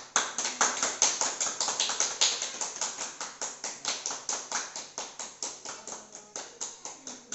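Hands clapping in a steady, quick rhythm, about six claps a second, growing a little fainter toward the end.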